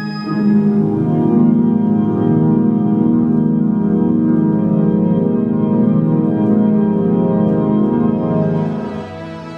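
Sustained organ-like chord from the Maze generative music software, a dense stack of steady tones with a fast fine pulsing. The chord changes about half a second in and fades down near the end.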